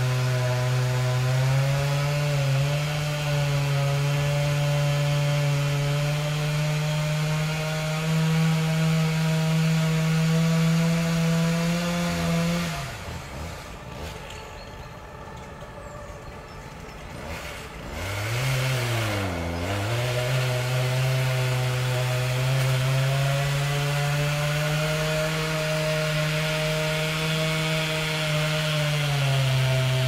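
Chainsaw running at high speed with a steady buzzing engine note. About 13 s in it drops back to a low idle for several seconds, then is revved twice and returns to full speed.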